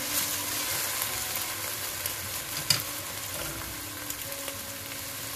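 Chopped onions sizzling in hot olive oil in a stainless steel pot while being stirred with a wooden spatula. One sharp tap stands out about halfway through.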